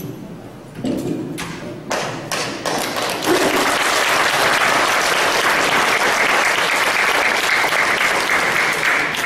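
Audience applauding: a few scattered claps at first, then full, steady clapping from about three seconds in that dies away right at the end.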